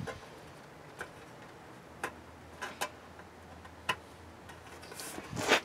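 A small hand tool and fingers working on a hard plastic go-kart body panel covered in stickers: a handful of faint, sharp ticks and taps, spaced about a second apart, then a louder short scrape near the end.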